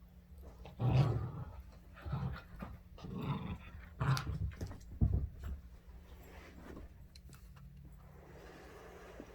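Dog growling in play, a handful of short growls in the first half, then quieter.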